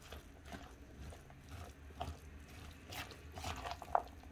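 Silicone spatula stirring an oil-dressed salad of diced beetroot, carrot, cucumber and avocado in a bowl: faint, irregular wet squishing strokes, about six over four seconds.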